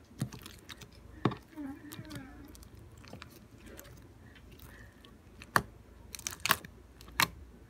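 Homemade slime, a little sticky, being squished and pulled apart by hand, giving wet squelches and sharp sticky pops, a cluster of them in the second half.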